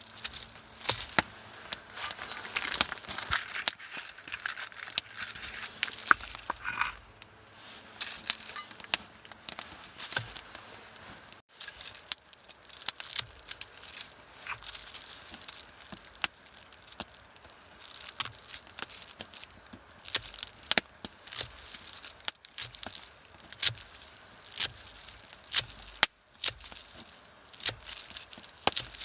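Dense, irregular crinkling and crackling, like material being crumpled or handled, with scattered sharper clicks.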